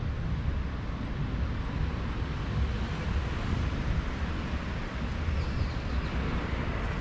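Steady outdoor street ambience dominated by a deep, even rumble, with no distinct events.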